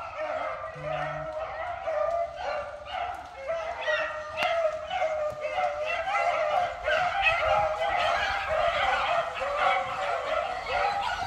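Pack of beagles baying together, many voices overlapping, growing louder after about two seconds. This is the chorus of a pack giving tongue as it runs a rabbit's scent trail.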